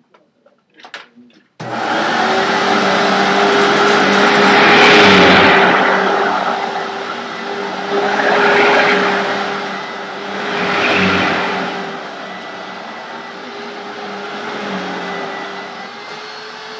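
Hoover WindTunnel Self-Propelled Premium upright vacuum cleaner switched on about a second and a half in, its motor running with a steady whine. The rush of air swells and fades three times.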